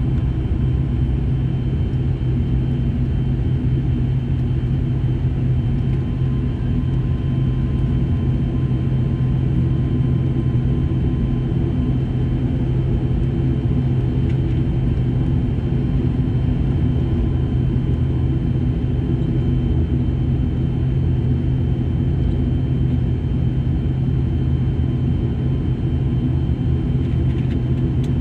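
An ATR-42's twin turboprop engines and propellers heard from inside the cabin while the aircraft taxis: a steady drone with a strong low propeller hum and a thin steady high whine above it.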